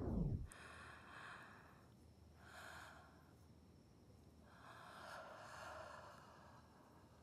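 A man snoring softly in his sleep: three slow, breathy snores, the longest near the end. The last notes of music fade out just before the first one.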